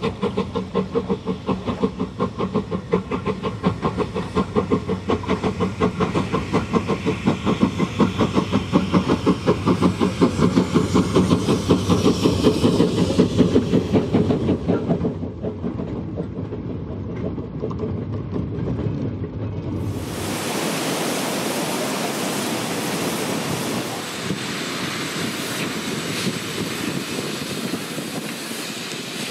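Steam locomotive working, its exhaust beats coming fast and regular and growing louder, then fading away about fifteen seconds in. About twenty seconds in the sound cuts abruptly to a steady rushing hiss.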